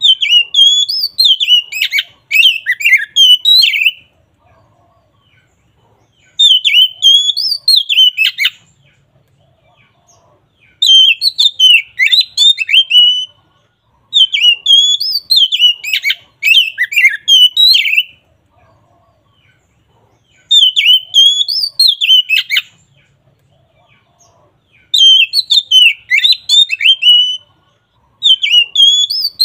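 Oriental magpie-robin (kacer) singing loud, clear, varied whistled phrases. Each phrase lasts two to four seconds, with short pauses between them, about seven phrases in all.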